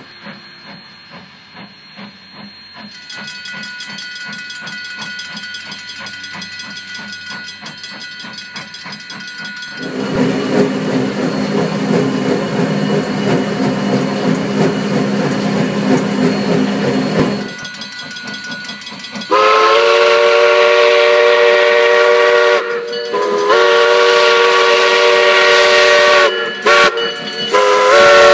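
Steam locomotive (Ventura County Railway No. 2) running, with rhythmic beats and a steam hiss. In the second half it sounds its multi-tone steam whistle: long loud blasts of a chord, broken by short gaps.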